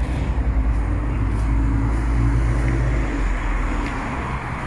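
Traffic on a busy town road: the low engine hum of passing vehicles, easing off about three seconds in.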